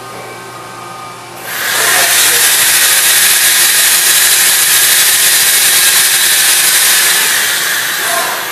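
Mori Seiki NT3200 DCG turning-milling center cycling with its milling head moving: a low steady hum, then a loud, even hiss that starts about a second and a half in and eases off near the end.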